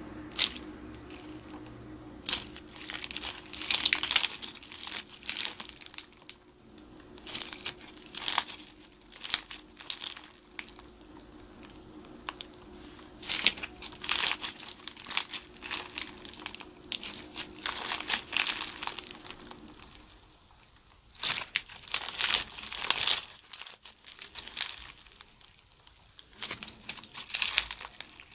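Slime being squeezed, stretched and pressed by hand, giving irregular runs of crackly, crinkly popping with short pauses between handfuls.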